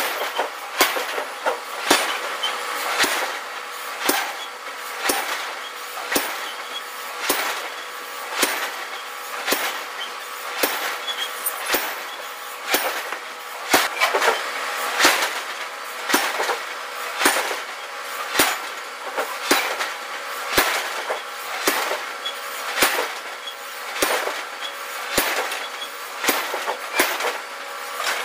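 Forging press working a red-hot iron block: sharp metallic knocks about once a second, over a steady machine hum.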